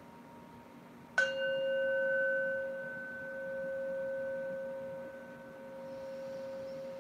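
A handheld metal singing bowl struck once with a mallet about a second in, then ringing on with a steady low tone and fainter higher overtones. The ring swells and fades in slow waves as it sustains.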